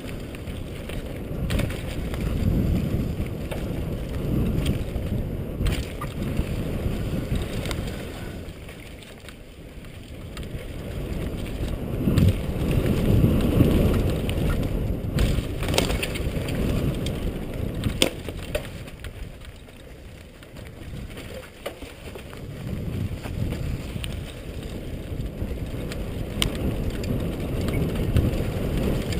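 Mountain bike running fast down a dirt trail: wind buffeting the helmet-mounted camera and tyre noise swell and fade with speed, with a few sharp clicks and knocks from the bike.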